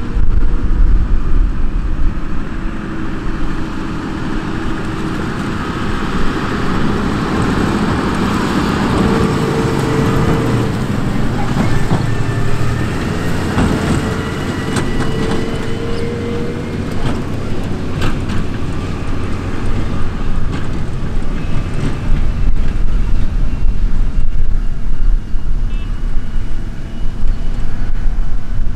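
Fendt tractor pulling a Claas Cargos forage wagon, its engine and drivetrain running under load as it drives past, with a low rumble and a tone that rises and falls in pitch.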